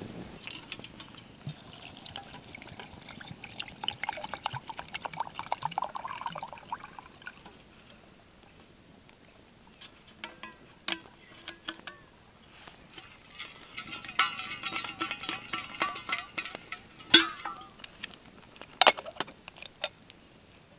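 Water poured into a stainless steel camping mug, the pitch of the pour rising as the mug fills, with a second, shorter pour later on. Sharp metal clinks of the cup and its wire handle come in between and near the end.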